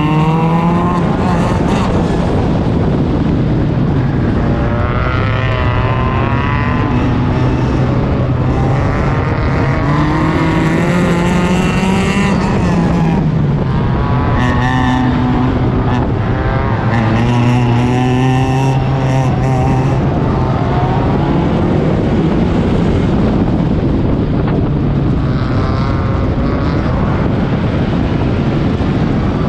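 Four-cylinder race car engine heard on board, revving hard, its pitch climbing and dropping again and again as the throttle is worked through the turns.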